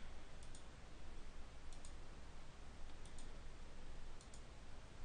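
Faint computer mouse button clicks, four pairs about a second and a quarter apart, over a low steady hum.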